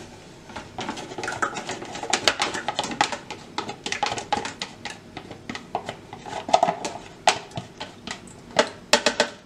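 A spoon clinking, tapping and scraping against containers in quick, irregular strokes as cream is spooned into a blender jar, with a few louder clinks near the end.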